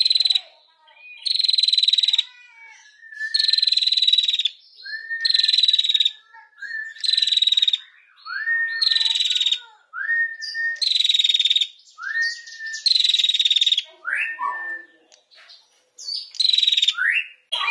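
Female prenjak (prinia) calling "ngetir": harsh, buzzy rattling bursts about a second long, repeated roughly every two seconds, with short rising chirps between them.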